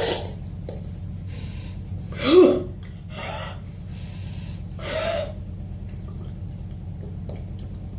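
A woman drinking lemonade from a bottle: a few breathy sips, gulps and gasps, the loudest a little over two seconds in. A low steady hum runs underneath.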